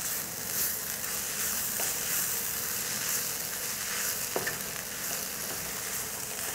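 Shredded cabbage and grated coconut sizzling in a nonstick kadai while a wooden spatula stirs and turns it over, with a steady hiss and a couple of light clicks of the spatula on the pan.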